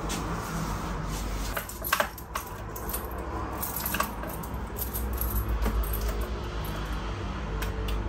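Ignition keys jangling and a few separate sharp clicks at the dashboard of a bus as the start is tried on flat batteries; the engine does not crank. A low steady hum sits underneath.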